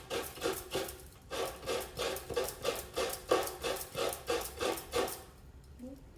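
Fresh coconut meat being scraped out of the shell half on a hand coconut grater's serrated metal blade: quick, even scraping strokes at about three a second, stopping about five seconds in.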